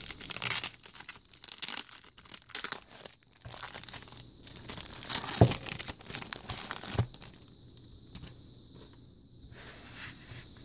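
Clear plastic packaging being torn open and crinkled, in crackling bursts that are loudest about half a second and five and a half seconds in, then quieter for the last few seconds.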